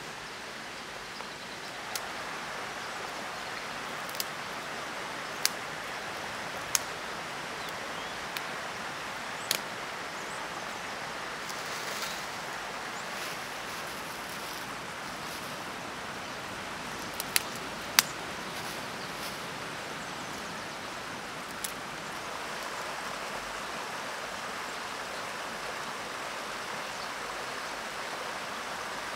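Dry leaves rustling and twigs snapping as a fire is laid by hand, with a handful of sharp snaps spread through, the loudest about 18 seconds in, over a steady rushing background.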